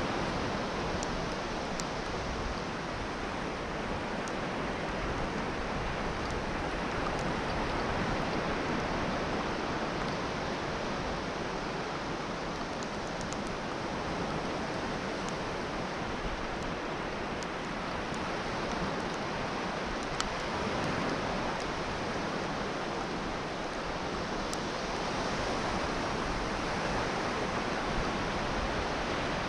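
Continuous wash of sea surf on a beach, swelling and easing slowly, with a few faint ticks.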